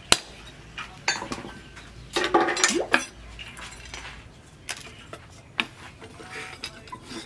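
A hammer strikes a chisel once on a steel cleaver blank at the start, then steel clinks and scrapes for about a second a little after two seconds in as the blade and tools are shifted on the anvil, followed by a few light metallic taps.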